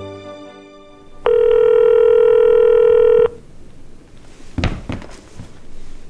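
Telephone ringing: one steady ring about two seconds long that cuts off abruptly, followed by a couple of sharp knocks. Fading music is heard at the start.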